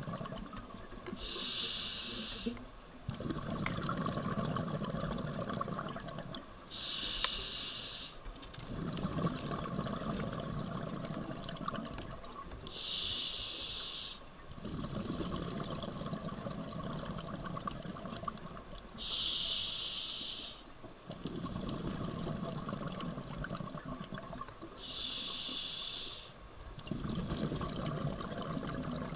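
Scuba diver breathing through a regulator: five hissing inhales about six seconds apart, each followed by a few seconds of rumbling exhaled bubbles.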